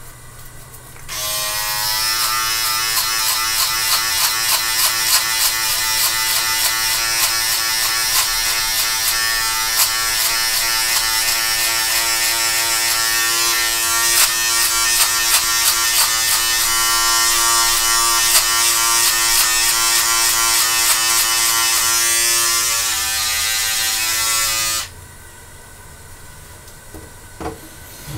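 Electric beard trimmer switched on about a second in, buzzing steadily for over twenty seconds with small irregular crackles as it cuts through beard hair, then switched off suddenly near the end.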